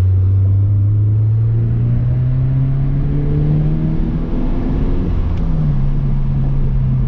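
2023 Toyota GR86's 2.4-litre flat-four engine, with the GR exhaust, pulling under acceleration. Its pitch rises steadily for about four seconds, holds, and then steps down sharply about six seconds in.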